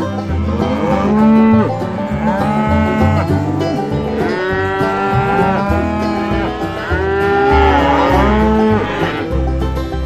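Cows mooing over and over, a string of long calls that rise and fall, about one a second, over background banjo music.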